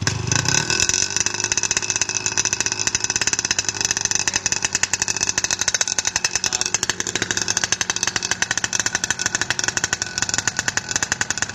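Yamaha RX King 135cc single-cylinder two-stroke motorcycle engine, contest-prepared, catching right at the start and then running steadily with a rapid, even train of firing pulses.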